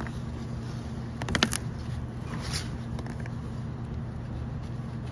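Small metal parts of a hydraulic pump's intake filter assembly handled by hand: a quick cluster of light clicks about a second and a half in, with a softer scrape a second later, over a steady low hum.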